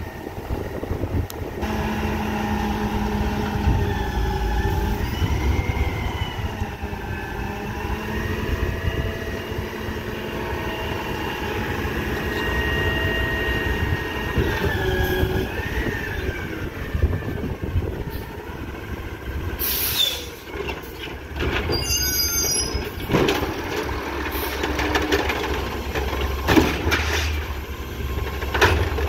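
Autocar ACX natural-gas garbage truck with an Amrep automated side-loader working at the curb. For the first half a set of whining, squealing tones rises and falls in pitch over the engine, the sound of the hydraulics driving the arm. About twenty seconds in come several sharp knocks and bangs, then the truck runs on more steadily.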